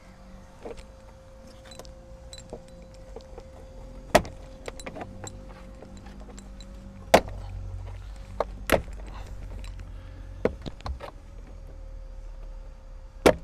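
Irregular clicks and knocks of car interior trim and fittings being pried and pulled out, with a few loud sharp ones about four, seven, eight and a half and thirteen seconds in, over a steady faint hum.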